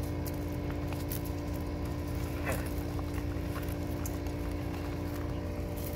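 A steady mechanical hum with several fixed low tones, with a few faint ticks and crunches from sulcata tortoises eating zucchini and shuffling on gravel. A brief squeak rises and falls about two and a half seconds in.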